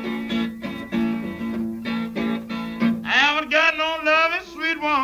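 A 1930s Delta blues recording, slowed to 92.5% speed so it sounds lower and slower. Solo acoustic guitar is picked over a repeated bass note, and about three seconds in a high, wavering male voice comes in singing.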